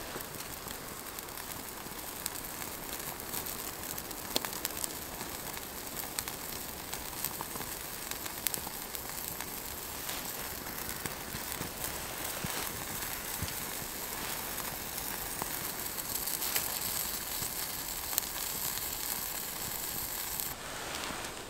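Burger patties and sliced red onion sizzling on a wire grill over a small wood-burning stove, a steady hiss with the wood fire crackling in scattered sharp pops.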